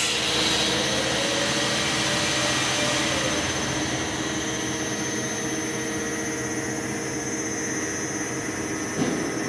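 CNC router gantry driven by its stepper motors back to the machine's home position: a steady mechanical whine with several held tones over a noisy hum, easing slightly after the middle.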